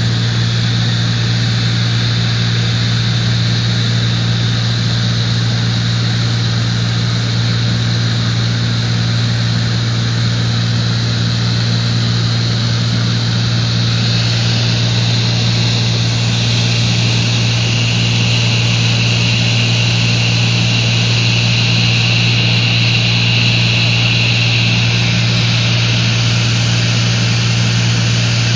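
Light aircraft's propeller engine droning steadily, heard inside the cabin: a loud, even low hum under a rushing hiss of airflow. The hiss grows louder and brighter about halfway through.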